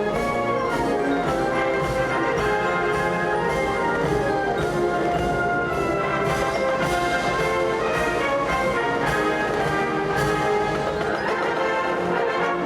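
A large high school wind band playing full out: brass section with drums keeping a steady beat.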